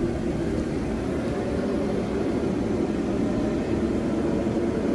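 A steady low drone, even in level and with no distinct knocks or impacts.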